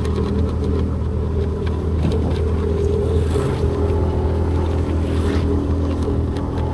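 Motorcycle engine running steadily at a constant pitch as the bike is ridden along a wet road. A couple of brief hissing rushes come about three and five seconds in.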